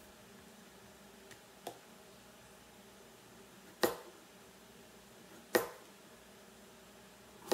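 Knife slicing through butternut squash, each cut ending in a sharp knock on a plastic cutting board, about every two seconds; the first knocks are faint, the last three louder.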